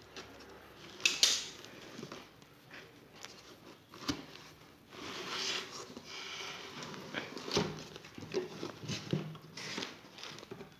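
Plastic fridge trays and their packaging being handled: crinkly rustling and scattered sharp plastic clicks and knocks, the loudest click about a second in.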